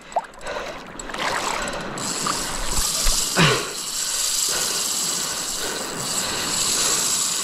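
Drag of a large saltwater spinning reel buzzing steadily as a big hooked fish pulls line off against a tight drag.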